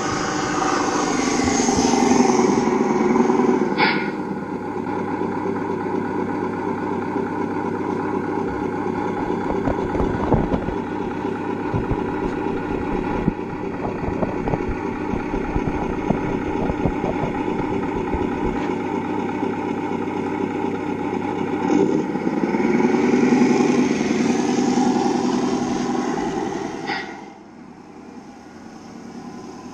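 Radio-controlled scale model Scania truck running with a steady engine sound that swells louder in the first few seconds and again near the end. The sound drops off sharply shortly before the end.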